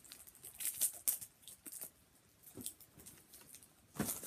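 Trading cards being handled: light papery rustles and flicks as cards are sorted, with a sharper knock about four seconds in as a card is put down on the pile.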